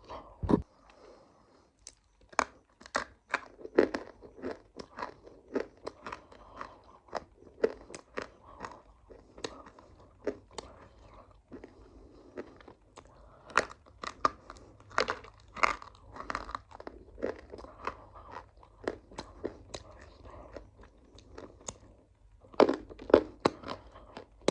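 A person biting and chewing crunchy food close to the microphone: a rapid run of sharp, brittle crunches, several a second, with a heavier thump about half a second in.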